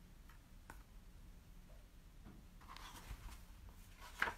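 Faint rustling of a picture book's paper pages being handled and turned, with a light click about a second in and a sharper paper sound near the end.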